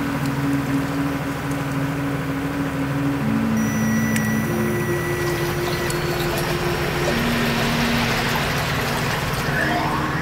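Electronic soundtrack: low held drone notes that step to a new pitch every second or two over a dense rumble, with a hiss swelling in the second half and rising whistling glides near the end.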